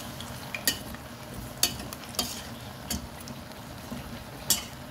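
Lumps of jaggery being stirred with a spoon in hot oil in a steel pot: a steady sizzle, with the spoon clinking against the pot about five times.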